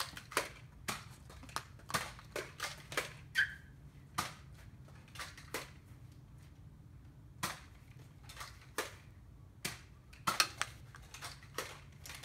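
Nerf Retaliator dart blasters being primed and fired: a string of sharp plastic clicks and snaps at irregular intervals, some in quick clusters of two or three.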